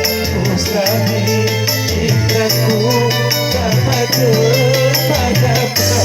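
Music from a song cover: a bass in held notes, a wavering melody line, and a steady shaker beat.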